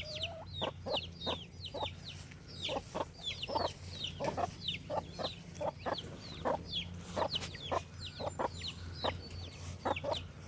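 Chickens clucking in short repeated notes, with many quick high-pitched calls that fall in pitch, over a steady low hum.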